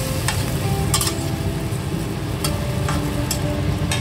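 Metal spatula stirring fried potato cubes and onions in a steel karahi. Its blade scrapes and clicks against the pan about seven times over sizzling oil with a little water in it, above a steady low rumble.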